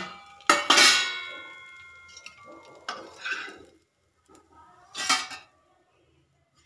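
Metal spatula and steel cookware clanging as a dosa is lifted off the tawa and onto a steel plate. One sharp clang about half a second in rings for a second or two, followed by softer scraping and a short clatter about five seconds in.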